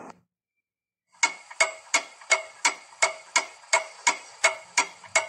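Clock-ticking sound effect starting about a second in, with evenly spaced ticks about three a second. It marks the five-minute wait for the test result passing in fast-forward.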